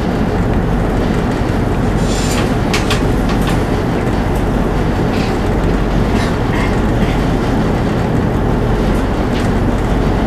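Diesel engines of a Voith Schneider tug running with a steady, loud low rumble, heard from the tug's deck. Short rattles and knocks come through a few times over it.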